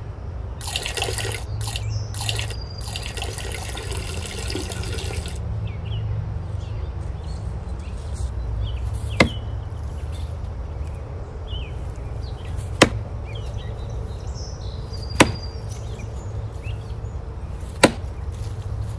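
Four sharp, single knocks on a tree trunk, a few seconds apart, over a steady low rumble. Rustling noise fills the first five seconds or so.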